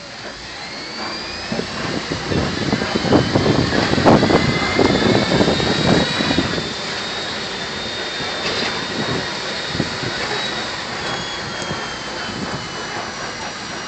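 Safari ride truck moving along its track: steady engine and road noise with a high whine that slowly glides up and down in pitch. Heavier low rumbling and knocking builds up and is loudest between about three and seven seconds in.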